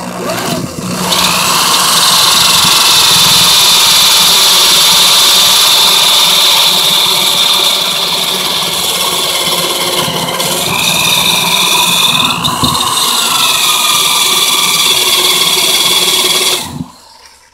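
Corded electric drill running with a small bit, boring into the head of a stripped carburetor screw to drill it off. It winds up in the first second, runs steadily with slight dips in pitch as it loads up, and stops near the end.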